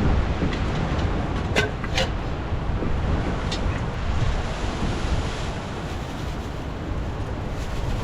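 Strong wind buffeting the microphone outdoors, a steady low rumbling roar, with a couple of sharp clicks about one and a half and two seconds in.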